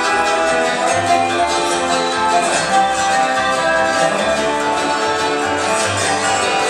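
Bluegrass band playing live on acoustic guitars, mandolin, resonator guitar and upright bass, with the bass stepping through notes about twice a second under the strummed and picked strings.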